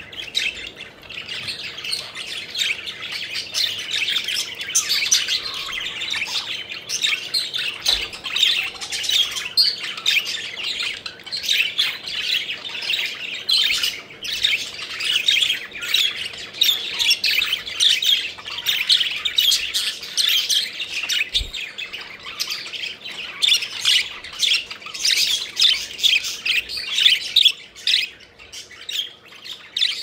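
A flock of budgerigars chattering, many short chirps and squawks overlapping without a break, thinning out briefly near the end.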